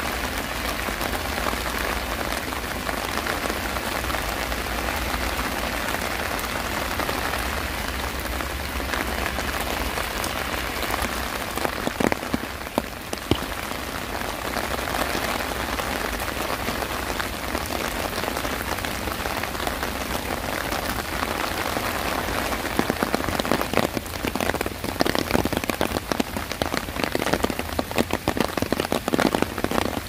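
Steady rain falling on alley pavement and surfaces, with a low hum underneath for roughly the first half. About three-quarters of the way in, close, sharp drops start striking thick and fast.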